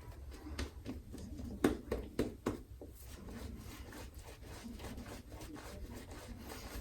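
Shaving brush lathering shaving cream on the face, a run of quick wet rubbing strokes, a few stronger ones about two seconds in.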